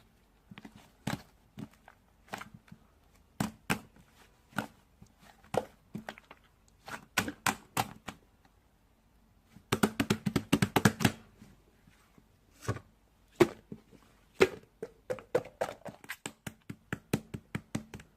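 Slime being squeezed and poked by hand, giving off irregular sharp clicks and pops as air pockets burst, with a quick run of rapid pops about ten seconds in.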